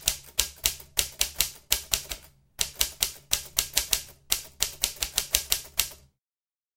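Typewriter keys being struck in quick runs of about four to five sharp clacks a second, with brief pauses between runs, stopping about six seconds in.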